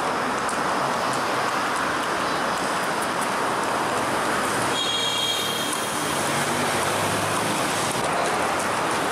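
Steady street traffic noise, an even outdoor hum, with a brief high-pitched tone about five seconds in.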